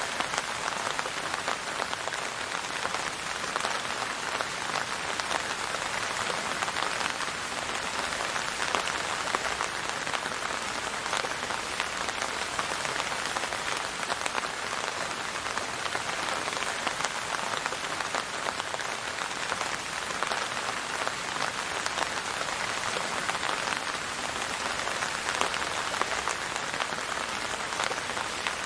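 Steady rain falling on a surface, an even hiss of many small drop impacts.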